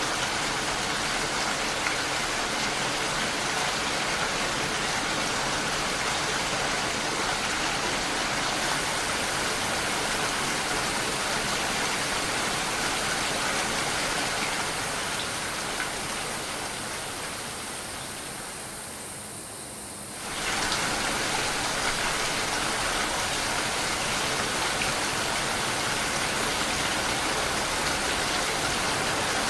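Steady rain, an even hiss of falling drops. About fifteen seconds in it fades and grows duller, then cuts back in at full strength a few seconds later, like the seam of a looped recording.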